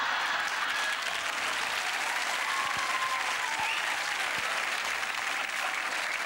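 Studio audience applauding steadily, with a few whoops rising through the clapping.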